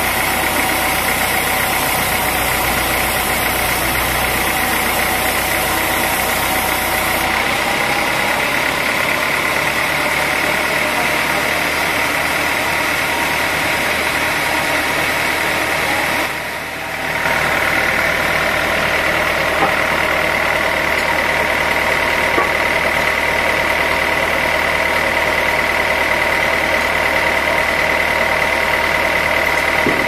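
Sawmill machinery running steadily: an engine note under a steady high whine. The sound shifts abruptly about seven seconds in and drops briefly about halfway through.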